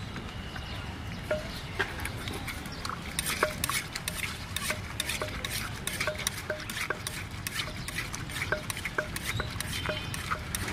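Wooden pestle pounding papaya-salad ingredients in a clay mortar: a steady run of knocks, roughly two a second, each with a short ring from the clay bowl, starting about a second in.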